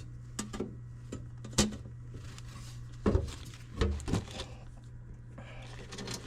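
Sharp knocks and clanks from furnace parts being handled and fitted, heard over a steady low hum.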